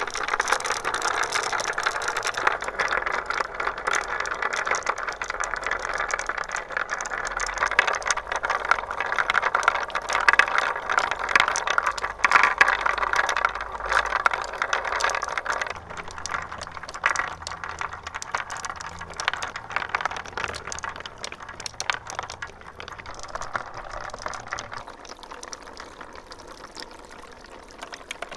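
Many marbles rolling and clattering along a plastic Trix Track marble run, a dense stream of clicks and rattling that thins out and grows quieter over the second half.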